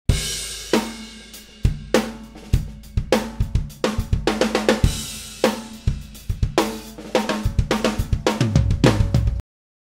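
Risen Drums acoustic kit (22-inch kick, 14-inch snare) played as a groove of kick, snare, hi-hat and cymbals, heard as a close-miked studio mix with the overheads turned down and the kick and snare boosted. The hits get busier and heavier in the low drums near the end, then the playing cuts off suddenly.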